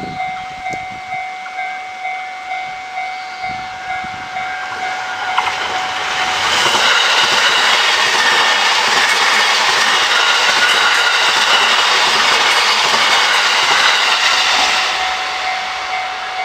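Japanese level-crossing warning bell ringing about twice a second. About six seconds in, a train passes over the crossing and its running noise drowns out the bell for about nine seconds, then the bell is heard again.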